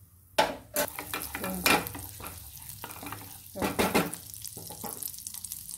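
Butter sizzling and foaming as it melts in a hot nonstick pan, starting suddenly about half a second in, with a spoon stirring and scraping against the pan.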